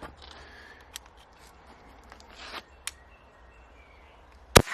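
A single sharp, loud shot about four and a half seconds in, over quiet outdoor background with a few light clicks and a brief rustle before it.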